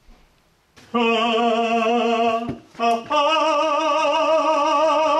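A voice singing long, operatic held notes with a wide vibrato, starting about a second in: one lower note, a short break, then a higher note held on.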